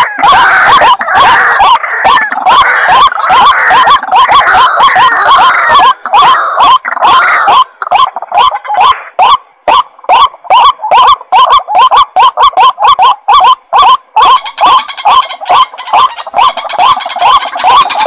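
White-breasted waterhen (ruak-ruak) calling loudly in a fast, even series of short rising notes, about three or four a second. The calls overlap into a denser chorus in the first half and again near the end.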